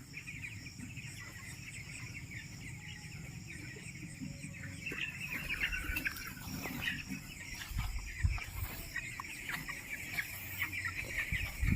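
A flock of broiler chickens in a poultry shed cheeping and chirping, many short high calls overlapping, growing busier about halfway through.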